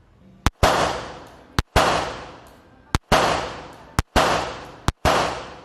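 Five 9mm Glock 19 pistol shots fired about a second apart, each a sharp crack with a long echoing tail that dies away over nearly a second.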